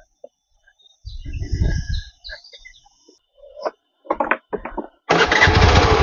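A small motorcycle engine: a short spell of engine sound about a second in, a few knocks, then from about five seconds in the engine running loudly and steadily.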